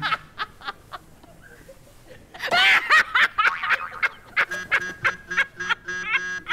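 Hearty laughter, a man's laugh honking in loud bursts about two and a half seconds in, with more short bursts after. Background music with steady held notes comes in over the last two seconds.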